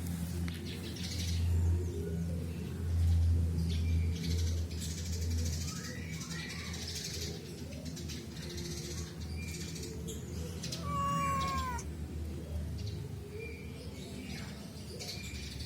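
Domestic cat meowing: a faint short call about six seconds in, then a clearer, slightly falling meow about eleven seconds in, over a steady low hum.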